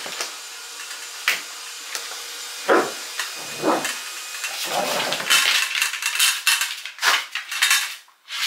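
A washing line pole knocking and clattering as a dog tussles with it, with scuffling noise in between. There are sharp knocks about a second in and again near the end.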